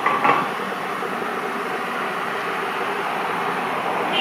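Steady drone of an approaching EMD WDG4D diesel locomotive still far off down the line, with two short high chirps near the start.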